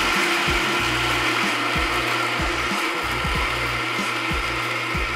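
Weber Workshops Key electric burr grinder running steadily as it grinds coffee beans.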